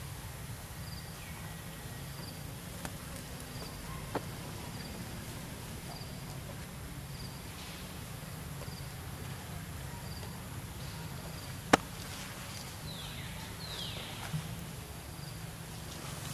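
Insect chirping faintly outdoors, a short high note about three times every two seconds, over a steady low hum. A sharp click stands out about twelve seconds in, and two quick falling whistle-like calls follow soon after.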